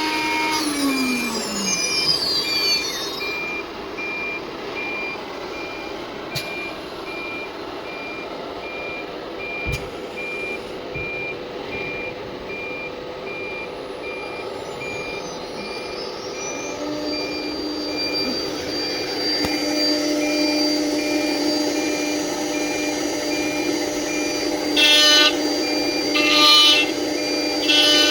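CNC milling machine running: the spindle's whine falls away in the first two seconds, the machine hums steadily, and a steady whine starts again about two-thirds of the way through. Near the end comes a run of short electronic beeps, several a second apart.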